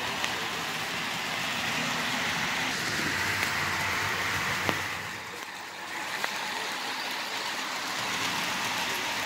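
HO-scale model diesel locomotives and cars running on the layout's track: a steady whirring hiss of motors and wheels on rail, with a few clicks.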